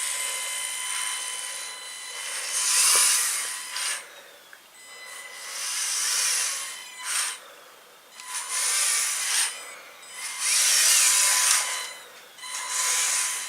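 LEGO Technic Control+ electric motors and gear train of a remote-control rally car whirring as it is driven in short spurts, about five bursts of a second or two each, with brief pauses between.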